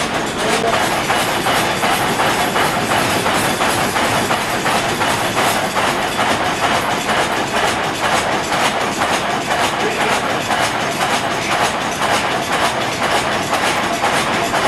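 Sawmill machinery running with a steady, rhythmic mechanical clatter as a timber rides the log carriage.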